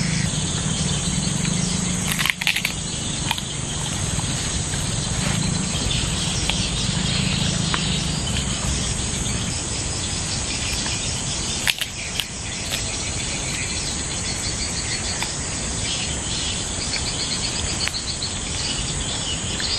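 Steady high-pitched drone of insects in riverside ambience, with two brief clicks, one about two seconds in and one near the middle.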